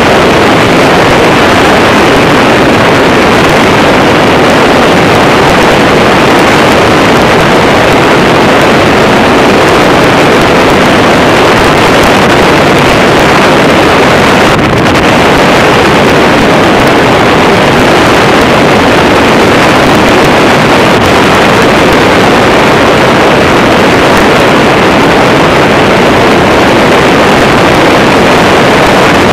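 Steady, loud rush of wind and engine noise on board an open motorized hang glider (trike) in cruising flight, dipping slightly for a moment about halfway through.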